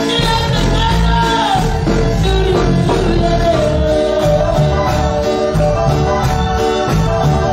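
A woman soloist singing an evangelical worship chorus into a microphone over instrumental accompaniment with a bass line.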